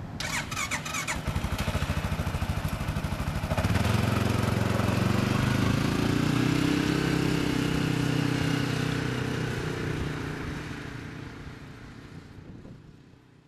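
ATV engine running, with a few sharp clicks in the first second, then getting louder about three and a half seconds in as the quad pulls away, and fading out near the end.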